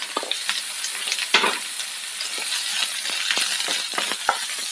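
Sliced onion, green chillies and garlic sizzling in hot coconut oil in a frying pan, stirred with a wooden spatula that scrapes and taps against the pan in scattered clicks.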